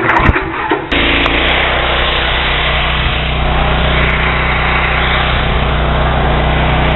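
Petrol pressure washer, a 13 hp Honda engine driving a Cat pump, running at full throttle: a few knocks, then about a second in a sudden jump to a loud, steady engine drone with the rushing hiss of high-pressure water spraying through a 25-degree tip.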